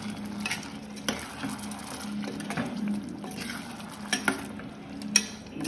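A spatula stirring and scraping in a pan of frying stuffed bitter gourd (bharwa karela), with light sizzling and several sharp metal clinks against the pan at irregular intervals, the loudest a little after five seconds in.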